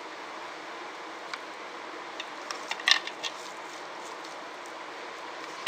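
Hands rubbing spice marinade into raw fish pieces in a bowl: soft handling noise with a cluster of small clicks and taps around the middle, the sharpest about three seconds in, and another sharp click at the very end, over a steady background hiss.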